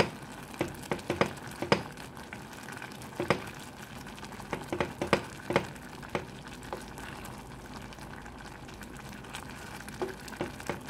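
Pot of mung bean soup at a boil, bubbling steadily, with irregular sharp clicks and knocks of a wooden spoon stirring against the aluminium pot, thickest in the first half.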